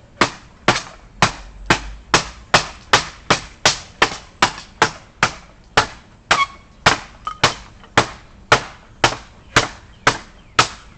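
Ontario machete chopping into a wooden pallet with fast, steady strokes, about two sharp chops a second.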